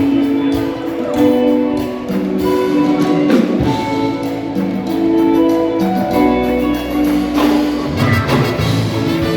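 A live band playing an instrumental passage, with no singing.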